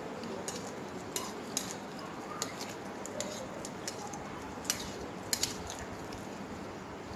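A metal fork clicking and scraping against a plate as noodles are twirled and picked up: about eight irregular sharp clicks, the loudest pair a little after five seconds in.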